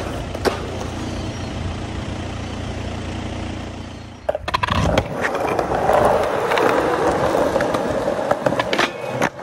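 Skateboard wheels rolling over concrete with a steady rumble, broken by a few sharp clacks of the board. The rumble cuts out just after four seconds in and starts again louder.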